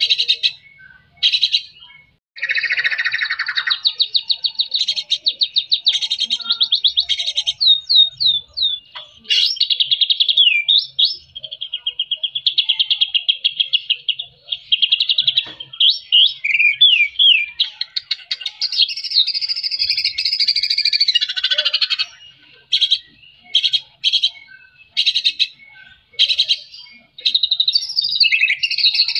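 White-rumped shama singing a long, varied song: fast rattling trills and dense chatter, broken by quick sliding whistled notes, with short pauses between phrases.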